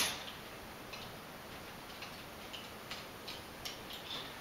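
Faint, scattered light clicks and ticks of a nut and bolt being worked off by hand from a metal dog-wheelchair frame support, about half a dozen small clicks at uneven intervals.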